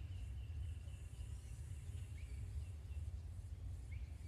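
A low, steady rumbling that the listener cannot identify and suspects could be a plane. Faint bird chirps and a thin, steady insect tone sit above it.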